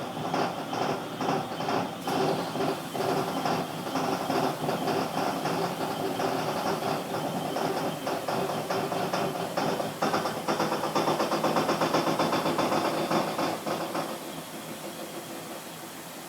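Kenmore Elite Quiet Pack 2 washing machine running with a loud, rhythmic mechanical noise that pulses a few times a second. About ten seconds in the pulsing quickens, and a few seconds later the noise drops in level.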